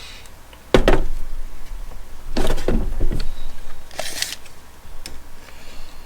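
Handling noises from tools being moved and measured: a sharp knock about a second in, a short run of knocks and clatter in the middle, then a brief scraping hiss.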